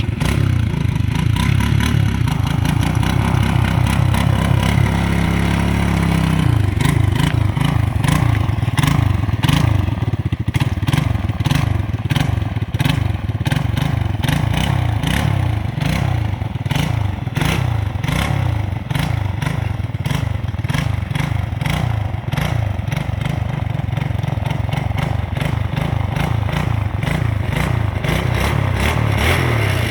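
Single-cylinder four-stroke sport ATV engine running under throttle. It holds steady for the first few seconds, then rises and falls in quick repeated surges, with frequent clattering knocks throughout.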